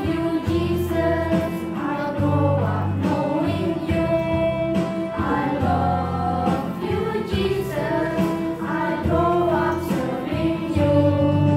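Children's choir singing a Christian praise song over a musical accompaniment with sustained bass notes.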